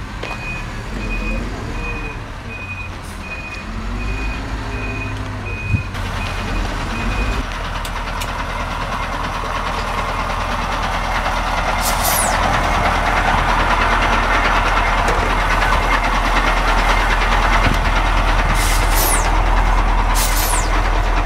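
A vehicle's reversing alarm beeps steadily, about one and a half beeps a second, over a running truck engine, then stops about seven seconds in. From about eight seconds in, a louder, even rushing noise builds up and holds to the end.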